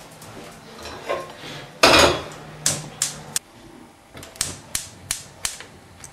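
A steel pot knocks on a gas hob's grate, then a quick run of sharp clicks, about three a second, as a burner knob is turned: the hob's spark igniter lighting the gas.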